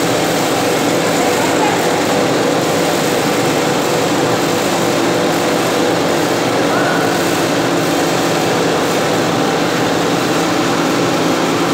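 Plastic packing-strap production line running: a steady machine drone with several constant hums, while the strap winder reels strap onto a spool.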